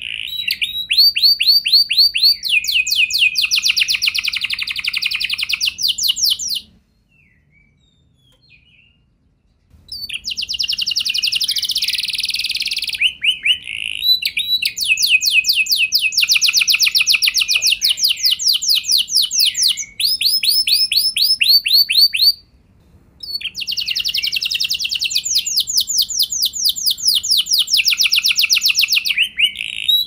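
Red canary singing long rolling trills of rapidly repeated high notes. About seven seconds in it falls silent for roughly three seconds, then resumes, with one more brief break about three quarters of the way through.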